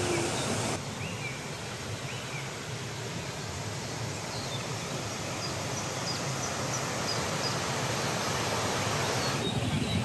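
Steady rushing water of a waterfall, an even hiss, with a few faint short high chirps above it. The sound's tone shifts abruptly about a second in and again near the end.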